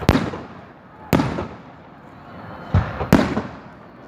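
Fireworks display: aerial shells bursting with four sharp bangs about a second apart, each trailing off in a fading rumble and crackle.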